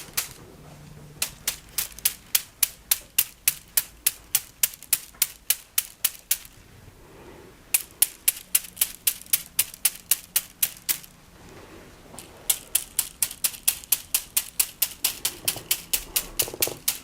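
Rapid dry clicking of natural plant-stem rods being tapped, about five clicks a second, in three runs broken by short pauses.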